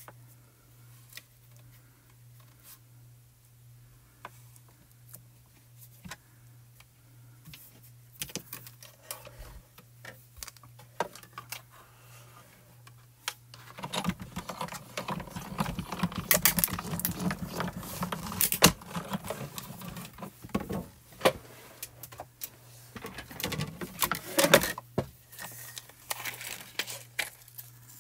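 Small clicks and taps of tape and acrylic plates being handled, then, about halfway through, a cutting-plate sandwich with an etched die and vellum being rolled through a Spellbinders die-cutting machine: a loud grinding run of about five seconds, followed by a shorter burst of plate handling.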